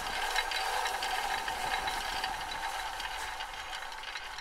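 Film projector sound effect: the steady rattling clatter of a projector running, slowly fading toward the end.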